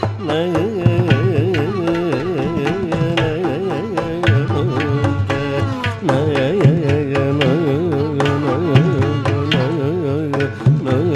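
Carnatic ensemble playing a pallavi in Adi tala: a male voice and violin trace an ornamented, sliding melody over rapid mridangam and ghatam strokes.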